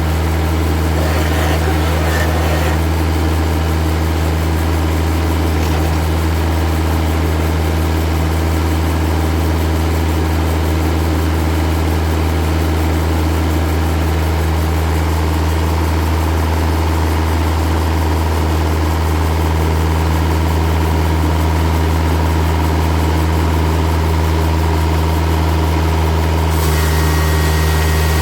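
TimberKing band sawmill running steadily, its engine humming under a hiss from the blade and mill. Near the end the sound shifts a little and a thin high whine comes in.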